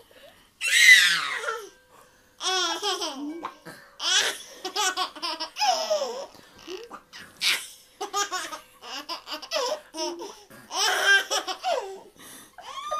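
A toddler laughing hard in repeated bursts of high-pitched belly laughs with short breaths between. The loudest burst comes about a second in.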